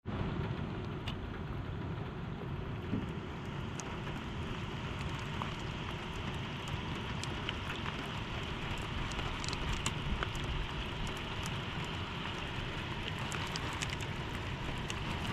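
Steady rain falling on the water, an even hiss with scattered faint drop ticks, mixed with wind on the microphone.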